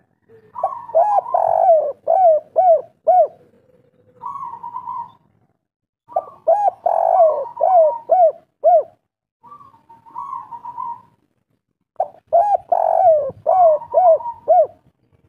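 Spotted dove (derkuku) singing its cooing song in the 'kuk 3' style: three phrases, each a quick run of about six arched coos, with softer, lower coos in the gaps between them.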